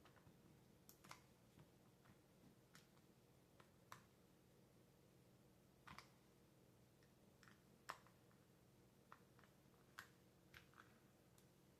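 Near silence over a steady low hum, with faint, irregular clicks every second or two from a wrench working the nut on a motorcycle turn signal's mounting stalk.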